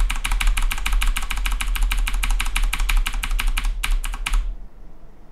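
Computer keyboard key pressed over and over in rapid, even succession, about six or seven presses a second: Ctrl+V being hit repeatedly to paste copies. The pressing stops a little over four seconds in.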